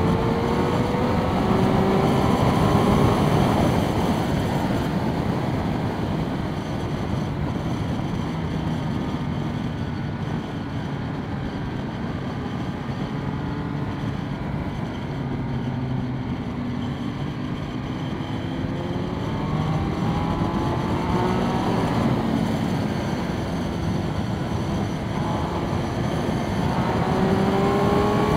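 Triumph Speed Triple 1200 RS inline three-cylinder engine under way, heard through wind rush at a helmet microphone. The revs climb in the first few seconds and again over the last several seconds, with steady cruising between.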